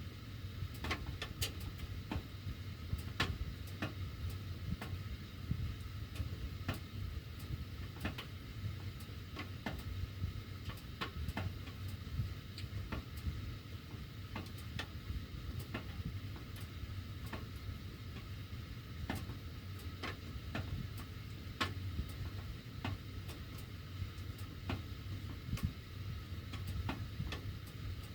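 Heating ductwork ticking and clicking irregularly with the heat on, sharp single clicks every second or so, over a steady low hum.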